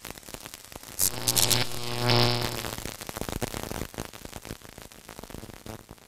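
Neon-sign sound effect for a lit logo: electrical crackling and sputtering, with a louder electric buzz about two seconds in, then the crackle slowly fading away.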